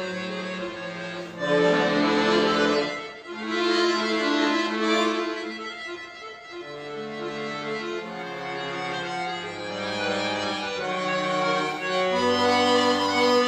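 Solo accordion (bayan) playing a slow, lyrical classical piece in held chords over a moving bass line, the chords changing about once a second. It swells about one and a half seconds in, eases off around three and six seconds, and builds again toward the end.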